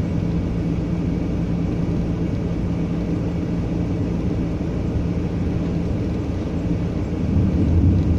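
Delivery vehicle's engine and road noise heard from inside the cab, a steady hum that deepens and grows a little louder about seven seconds in.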